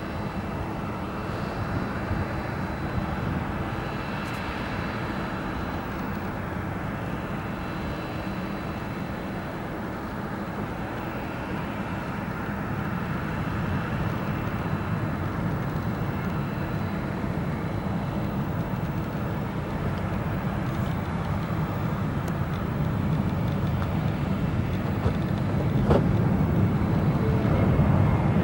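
Jet airliner engines running, a steady rumble with a faint high whine that grows louder toward the end. A sharp click sounds near the end.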